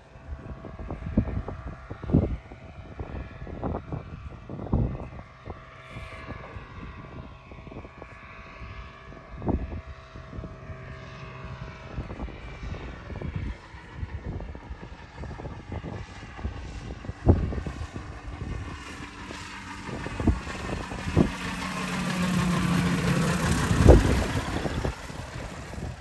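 Thruster microlight's engine and propeller droning on the landing approach, growing louder about three quarters of the way through as it comes low past the microphone. Wind buffets the microphone in frequent sudden thumps.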